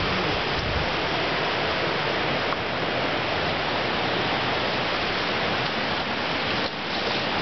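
Steady rushing of running stream water.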